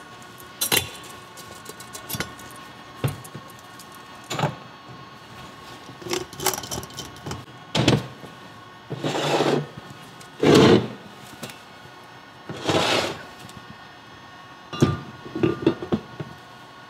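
Differential parts (the pinion, tapered roller bearings and the cast third-member housing) being handled and set down on a metal workbench: scattered clicks and knocks of metal on metal, with three longer bursts of noise about nine, ten and a half and thirteen seconds in, and a quick run of small clicks near the end.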